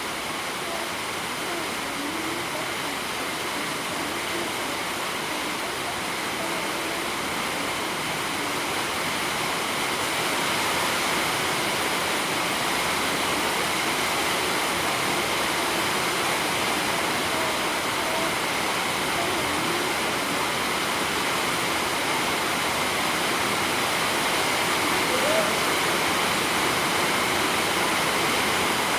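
Steady rushing noise, growing slightly louder over the first ten seconds, with faint voices under it.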